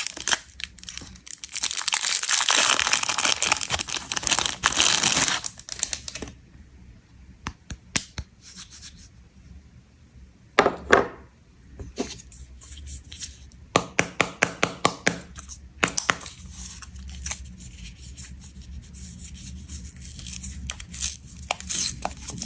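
Snack packaging being unwrapped: wrappers crinkling and tearing. A long stretch of dense crinkling comes first, then scattered sharp snaps and short rips, with a quick run of snaps partway through.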